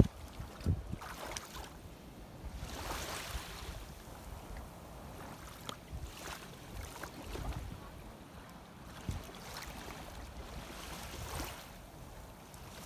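Shallow sea water sloshing and lapping, with wind rumbling on the microphone; a louder wash of water comes about three seconds in.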